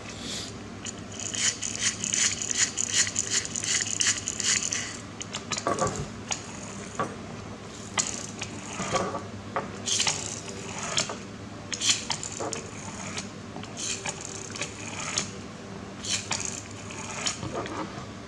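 Small toy-car parts being handled and worked on by hand: irregular clicks, taps and short scrapes of small metal and plastic pieces, with a steadier high buzzing sound from about one to five seconds in.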